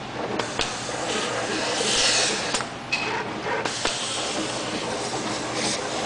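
Automated PCB coating machine spraying coating through its Precis spray valve onto circuit boards: hissing spray that swells in bursts, loudest about two seconds in, with a few sharp mechanical clicks as the spray head moves.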